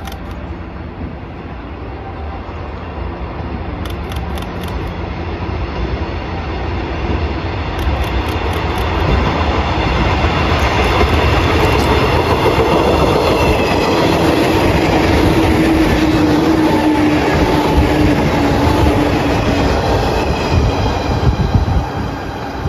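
A JR West 103 series electric train approaches and passes at speed without stopping. Its wheels rumble on the rails, growing louder to a peak about two-thirds of the way in, with a whine that drops slightly in pitch as it goes by, then the sound fades near the end.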